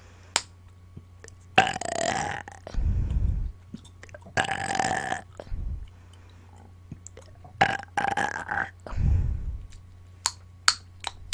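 A woman burping on command: several loud belches a couple of seconds apart, some with a pitched, voiced tone and some low and rumbling, followed by two sharp clicks near the end.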